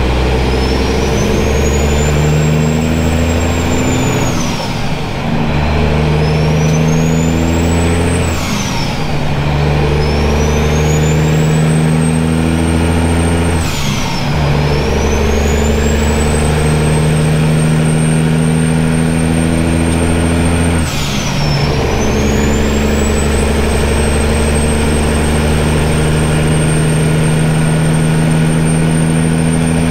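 Straight-piped Caterpillar 3406 inline-six diesel in a Kenworth W900 pulling hard through the gears of its 13-speed manual, heard from inside the cab. It shifts four times. At each shift the exhaust note dips briefly, and a high turbo whistle falls away, then climbs again as the engine pulls. The whistle holds steady near the end.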